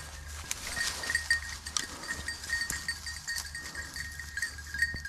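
A pack of rabbit hounds giving voice as they run a rabbit's track, many short cries overlapping.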